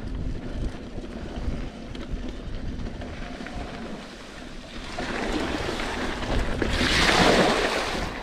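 Wind buffeting the camera microphone over the rolling noise of a mountain bike's tyres on a dirt trail, with a broader rushing swell that builds about five seconds in and is loudest near the end.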